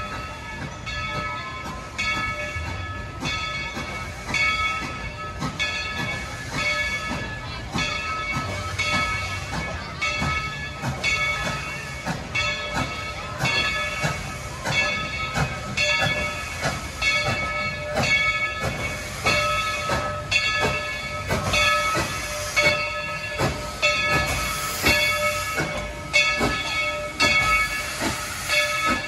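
Dollywood steam locomotive No. 70 drifting into the station, its bell ringing steadily about once a second over the knock of the running gear. Escaping steam hisses, growing louder as the engine draws near.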